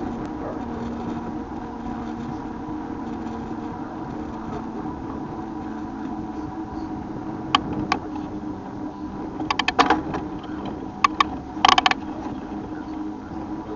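Bicycle being ridden, with a steady hum under it. From about halfway in come short bursts of sharp clicks and rattles.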